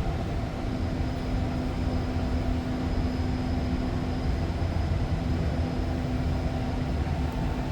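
Interior running noise of a REM automated light-metro train: a steady low rumble with an even hum held over it.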